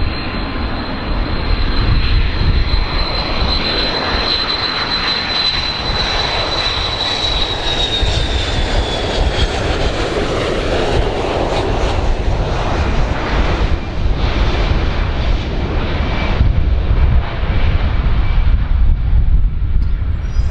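Boeing 727's three Pratt & Whitney JT8D turbofans on landing approach, a loud jet rumble with a high whine that holds and then drops in pitch about seven to nine seconds in as the plane passes.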